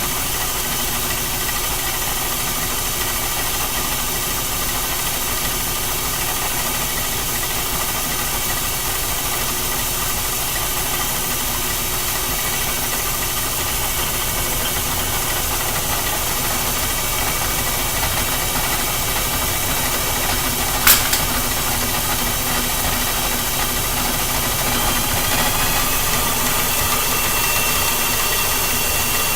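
Early-1900s Reed lathe, driven by a retrofitted treadmill motor, running steadily while a step is turned onto a bearing presser. There is a single sharp click about two-thirds of the way through, and a thin high whine comes in near the end.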